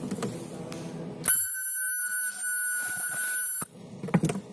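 Handheld ultrasonic spot welding gun firing on a plastic part: a steady, high-pitched whine with many overtones. It starts abruptly about a second in and cuts off sharply a little over two seconds later.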